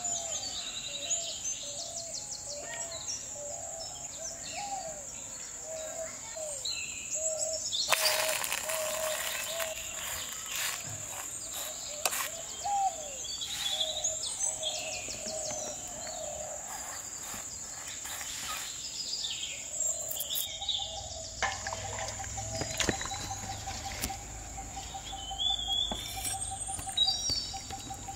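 Birds chirping and calling over a steady high-pitched insect drone, with lower whistled calls repeating through the first part. A cluster of scrapes and knocks comes about eight seconds in, and a fast pulsing trill sets in later.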